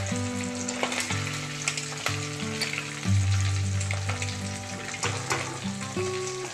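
Prawns sizzling and crackling in hot mustard oil in a steel kadai, with the wire-mesh skimmer scraping and tapping against the pan as the fried prawns are lifted out to drain. Background music with low held notes underneath.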